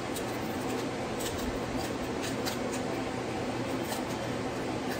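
Kitchen scissors snipping through a lobster tail's shell: a string of short, irregular clicks and snips over a steady background hiss.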